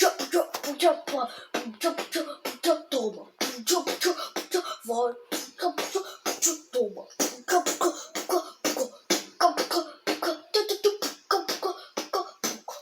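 A person beatboxing a Brazilian funk montagem beat: quick mouth clicks and percussive hits mixed with short sung syllables, without a break.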